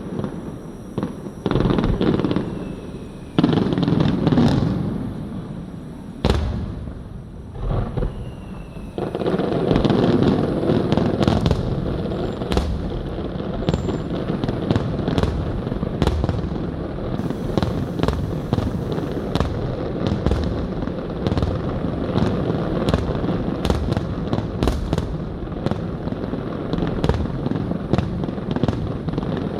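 Aerial firework shells bursting: deep booms with sharp cracks. From about nine seconds in the bursts come thick and fast, one on top of another.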